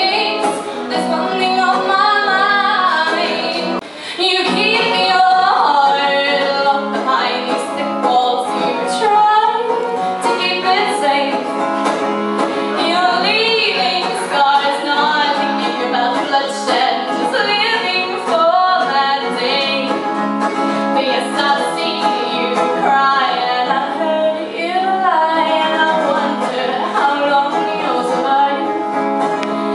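A woman singing a song over instrumental accompaniment, her voice gliding and wavering between notes, with a brief break about four seconds in.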